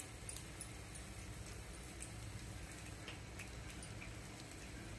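Faint, irregular crackling of a moong dal patty shallow-frying in oil in a pan, a scatter of small ticks and pops.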